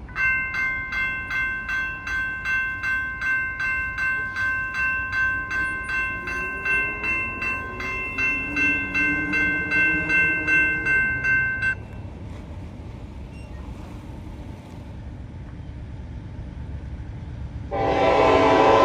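Railroad crossing signal bell ringing rapidly, about two strikes a second, then stopping suddenly about twelve seconds in. About a second before the end, a locomotive air horn starts sounding loud and steady, the loudest sound here.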